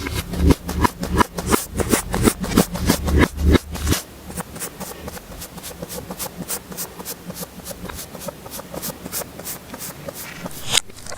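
Slime being worked by hand, a regular run of small sticky clicks and pops, about three or four a second, with lower thuds under them that drop away about four seconds in, leaving lighter, quicker clicks.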